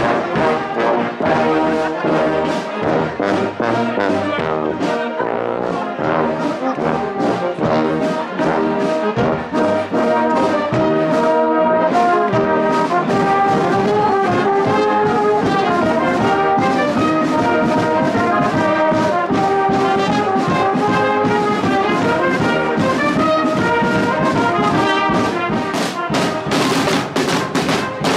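A marching brass band playing at close range, trombones, tubas and cornets carrying a steady tune, with a snare drum keeping a regular beat that comes up stronger near the end.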